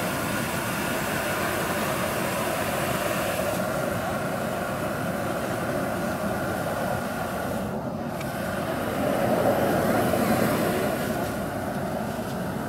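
Gas torch burners blowing a flame into the mouth of a large paper hot-air balloon to inflate it: a continuous rushing roar. It dips briefly about eight seconds in, then runs a little louder.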